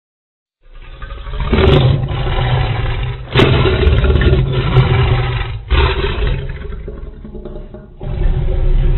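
Homemade Godzilla sound effect: a loud, rough, rumbling roar that comes in about four surges after a brief silence at the start.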